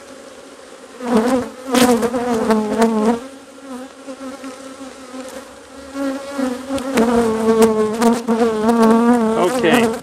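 Honeybees buzzing close by, the pitch wavering as they fly around, swelling loud as bees pass near about a second in and again from about six seconds in. The bees are stirred up by the hive being opened and frames pulled.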